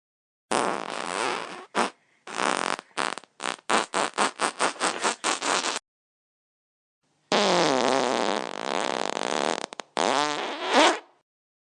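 Wet farts: a few short blasts, then a quick run of short pops at about four or five a second. After a pause comes a long fart that falls in pitch, then a shorter one.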